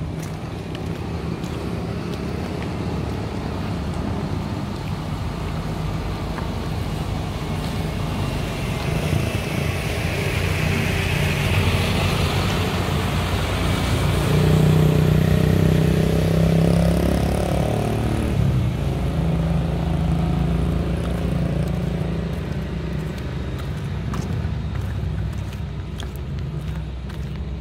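Fuel tanker truck approaching and driving past close by. Its engine and tyres build to a peak about halfway through and then fade as it moves away.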